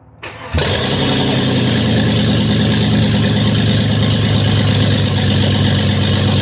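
Vehicle engine running hard at steady high revs under a loud rushing noise. It comes in suddenly about half a second in and cuts off near the end.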